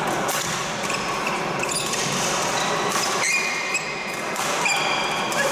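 Badminton rally: several racket strikes on a shuttlecock and sneakers squeaking on the court floor, over the steady noise of a busy sports hall.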